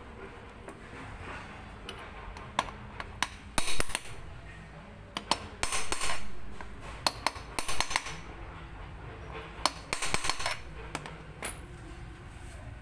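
Irregular metal clinks and short scrapes as small metal parts are fitted by hand into the cover of an electric-bike hub motor, ahead of tightening its screws.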